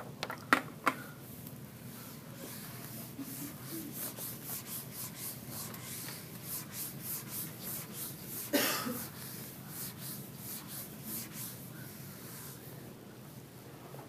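Whiteboard eraser rubbing back and forth across the board in quick, repeated strokes, wiping it clean. A few sharp clicks come about half a second in, and a single louder hit about two-thirds of the way through.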